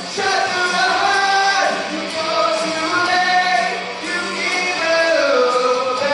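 Male lead vocalist singing a 1980s glam-metal cover live, with long held and gliding notes over loud rock accompaniment.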